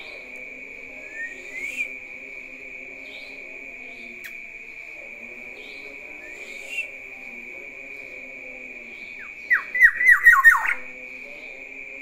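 Black-naped oriole calling: two short upward-sliding whistles a few seconds apart, then, louder, a rapid run of about six harsh down-slurred notes. A steady high-pitched whine runs underneath.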